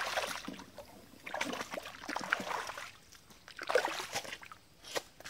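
Feet splashing and sloshing through shallow stream water in several bursts.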